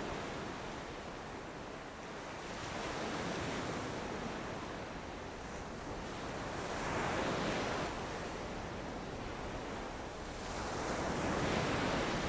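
Surf-like rushing noise, swelling and fading about every four seconds.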